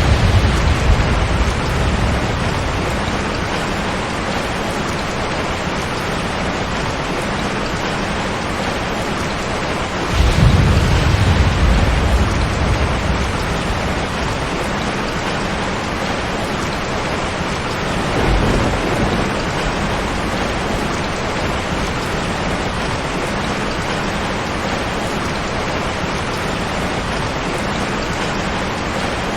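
Heavy rain drumming steadily on a tin roof, with thunder rumbling. A rumble fades over the first couple of seconds, the loudest rolls in about ten seconds in and dies away over a few seconds, and a softer one comes near eighteen seconds.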